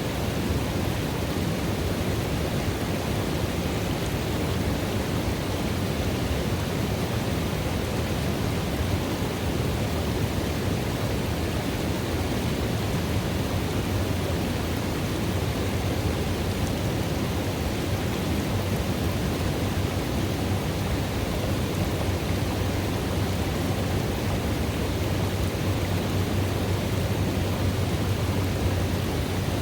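River water running steadily into a pool: an even, deep rush that does not change.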